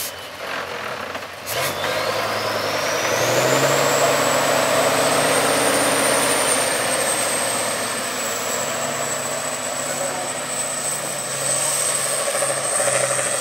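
6x6 trial truck's diesel engine pulling hard under load as it drives through a mud pit, with a high whistle that rises a couple of seconds in and then holds. A sharp knock comes just before the engine builds.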